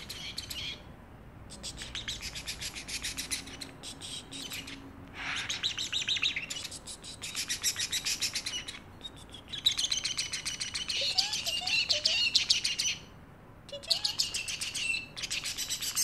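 Pet parrotlet chattering in fast runs of high, rapid chirps, in bouts of a second or two separated by short pauses.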